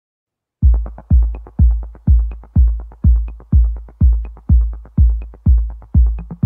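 Electronic background music with a steady deep kick-drum beat, about two beats a second, coming in after a brief silence about half a second in.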